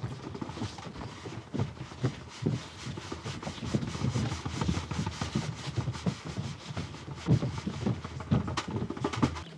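Irregular thuds and scuffs of dancers' feet running and landing on a floor.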